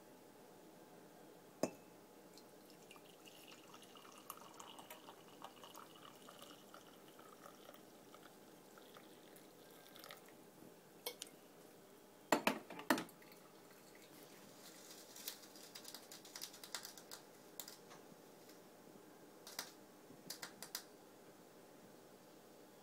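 A hot drink being poured into a ceramic mug, a faint trickle for several seconds. It is followed by a few sharp knocks against the mug, the loudest sounds, and then scattered light drips and clicks.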